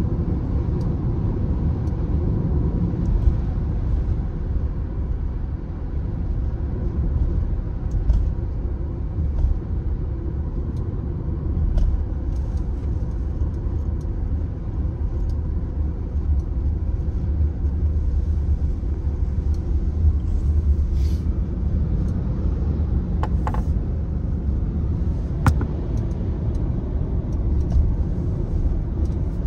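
Steady low rumble of tyre and road noise from a moving car, heard from inside the cabin, with a few faint clicks in the second half.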